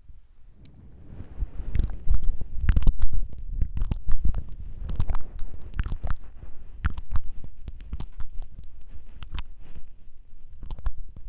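Close-miked ASMR mouth sounds: rapid wet tongue clicks and tongue fluttering right at the microphone, with heavy low thumps from the mouth's closeness. They begin about a second in after a brief lull and go on in irregular clusters.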